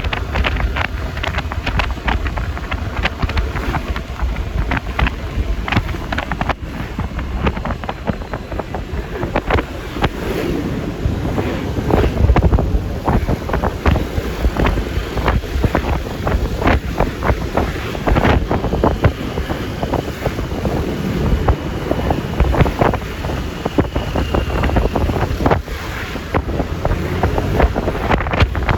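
Wind buffeting the microphone in irregular gusts over the road noise of a Yamaha Lexi LX 155 scooter riding at speed in traffic. A faint high steady tone sounds for several seconds in the middle.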